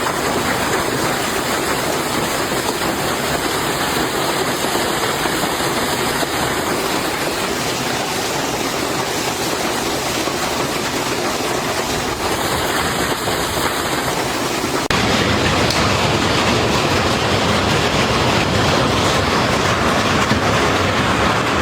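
Heavy hail pelting down, a dense steady clatter of countless stones striking. About fifteen seconds in it suddenly gets louder and fuller.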